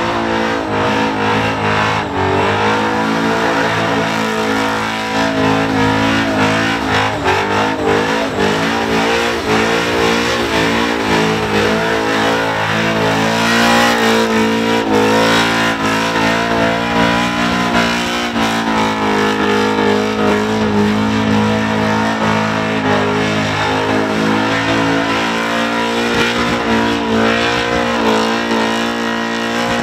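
Supercharged, methanol-fuelled Holden VK Commodore engine held at high revs through a burnout, its rear tyres spinning and smoking on the pad. The revs waver, dipping and climbing again several times.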